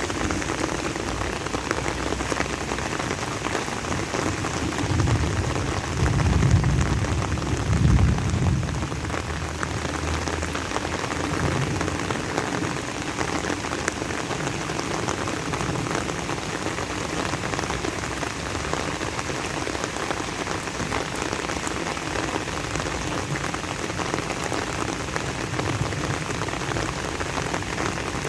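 Steady rain falling and pattering on surfaces, with a louder low rumble for a few seconds starting about five seconds in.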